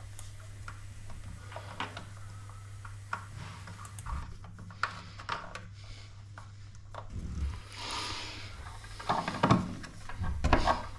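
Small clicks and rubbing as a heavy red shower cable is handled and its terminal screw worked with an insulated screwdriver, the clicks clustering louder near the end. A steady low hum runs underneath.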